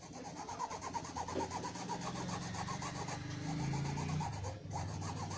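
Paintbrush scrubbing quickly back and forth on cloth, a dry rasping rub of many rapid strokes. The blue fabric paint has gone hard, so the brush drags and sticks on the fabric.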